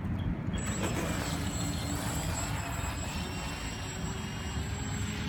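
Brushless electric motor of an Atomik Barbwire RC racing boat giving a thin, high-pitched whine as the boat speeds off across the water, starting about half a second in. Wind rumble on the microphone runs underneath.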